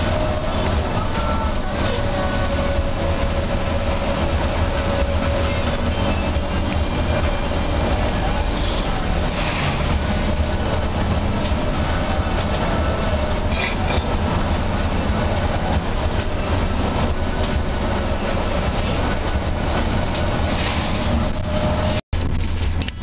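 Steady drone of a moving bus heard from inside the cabin at road speed: a deep engine and road rumble. It cuts out for an instant near the end.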